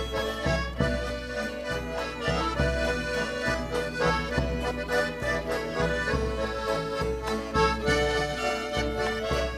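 Lithuanian folk band playing an instrumental introduction. A violin and a button accordion carry the tune over guitar, a frame drum and a bowed double bass, which gives steady low notes.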